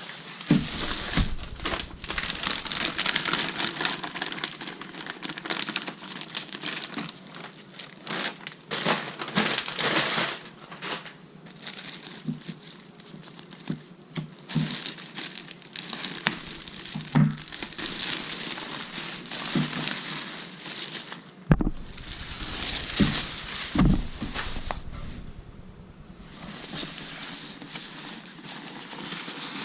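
Packaging crinkling and rustling as it is handled, in bursts with short pauses, with a few knocks; the sharpest knock comes about two-thirds of the way through.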